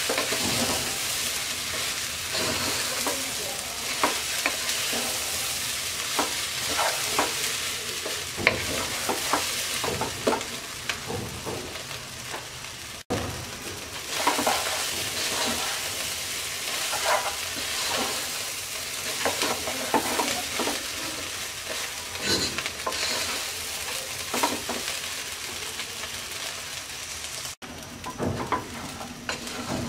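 Broken rice and chopped vegetables frying over medium heat in a nonstick pot, with a steady sizzle. A wooden spatula stirs and scrapes through them, making frequent short knocks against the pot. The sound cuts out for an instant twice, about 13 and 27 seconds in.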